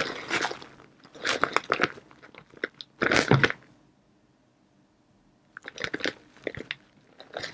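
Plastic bag of shredded cheese crinkling as it is shaken and tipped out over a lasagna, in several short crackly bursts with a lull of about two seconds midway.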